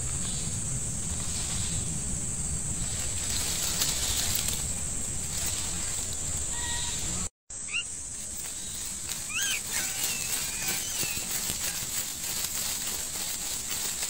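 Several short, high chirps from young sooty-headed bulbuls, rising and falling in pitch, heard after a brief dropout about seven seconds in and again near the end. Under them runs a steady hiss with a thin high whine, and a low rumble in the first half.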